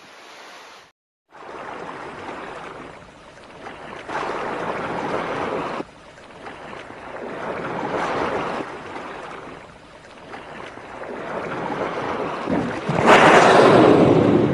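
Rushing, water-like noise that swells and fades several times, then a loud rushing blow from a surfacing blue whale's blowhole near the end.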